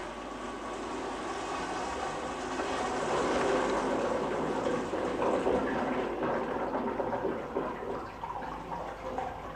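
A toilet flushing: a steady rush of water that swells a few seconds in and then keeps running as the cistern refills.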